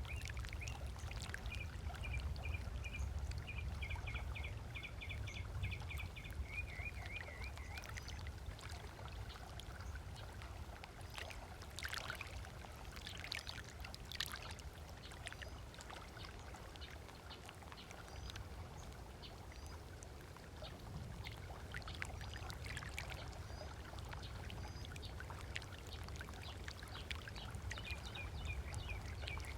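Small waves lapping on a lakeshore beach, with a few sharper splashes about halfway through. A bird gives a rapid string of repeated chirps over the first several seconds and again near the end.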